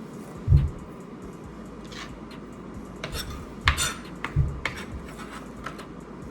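Kitchen knife knocking on a cutting board while chopping cabbage: a handful of irregular sharp knocks, the loudest about half a second in and a little before four seconds.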